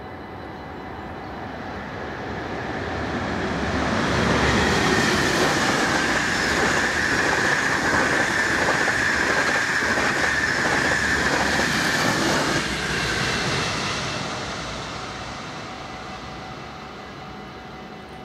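NS InterCity electric train passing over a level crossing. It rises as it approaches, runs loud for about nine seconds with rapid wheel clatter over the rail joints, then fades away. Under it the crossing's warning bell rings steadily throughout.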